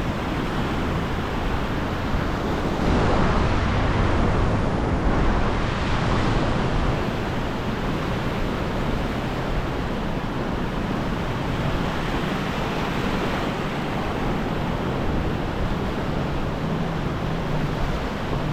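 Sea surf washing onto a sandy beach, a steady rush of breaking waves that swells louder as one wave comes in a few seconds in, then settles back.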